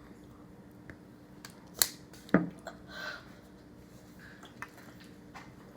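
Small handling noises at a meal: two loud sharp clicks about half a second apart near the middle, with a few fainter ticks and a brief rustle, over a faint steady hum.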